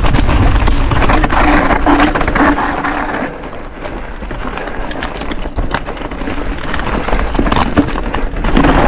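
Mountain bike riding down a rocky trail of loose stones: tyres crunching over gravel, with many quick rattles and clatters from the bike over the bumps, and wind rumbling on the microphone. It gets quieter for a few seconds in the middle, then louder again near the end.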